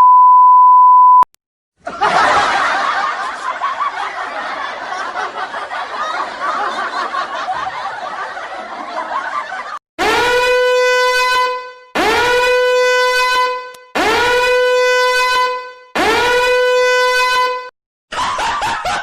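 A run of stock sound effects: a one-second censor-style beep, then about eight seconds of dense, busy noise, then four identical horn-like blasts of about two seconds each, each sliding up into a steady note. Near the end a choppier effect begins.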